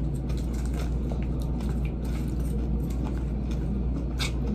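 Close-up chewing of a spinach salad with bean sprouts, with a plastic fork clicking and scraping against the bowl, one sharper click about four seconds in. A steady low hum runs underneath.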